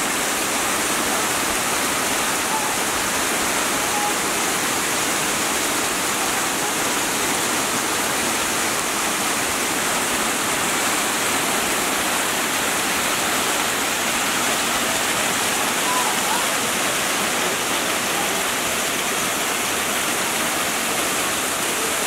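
Waterfall: water cascading in several thin streams down mossy rocks, a steady, unbroken rushing noise.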